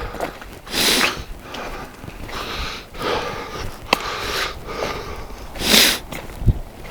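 A man breathing hard in heavy, repeated breaths while hiking uphill, with a few light footstep clicks.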